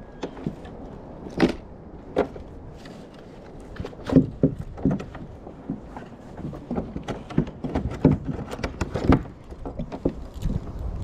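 Irregular knocks and clicks on a fishing kayak, with no steady rhythm, as gear is handled while a fish is brought up.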